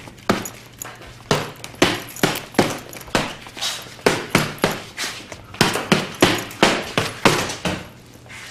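Gloved fists punching a hanging heavy bag: a quick run of thuds, about two or three a second, that stops shortly before the end.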